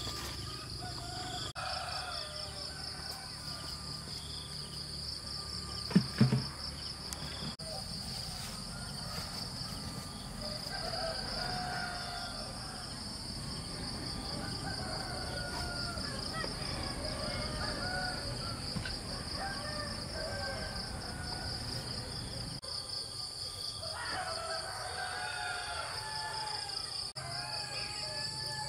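Insects trilling steadily in a pulsing high chorus, with birds calling now and then. Two loud low thuds come about six seconds in.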